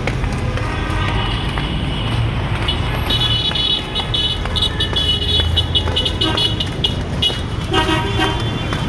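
Busy street traffic: a steady low rumble of engines and cars, with car horns tooting several times in the middle and a longer horn blast near the end.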